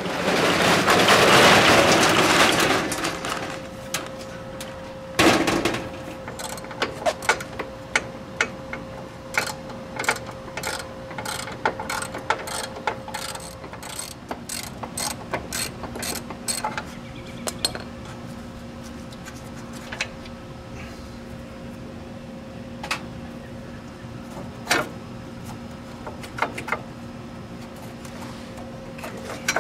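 Aerosol spray can hissing through its straw for about three seconds, then a knock, then a socket ratchet clicking in quick runs, more sparsely later, as a bolt is worked loose.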